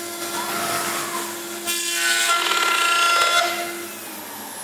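5-axis CNC mill's spindle and cutter milling ABS plastic: a scraping cutting noise over a steady machine whine, with a short harsher rasp about two seconds in. The cutting stops about four seconds in, and a high whine begins falling in pitch near the end.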